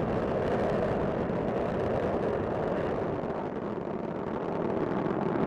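Space Shuttle Discovery's two solid rocket boosters and three main engines during ascent: a steady, deep rumble.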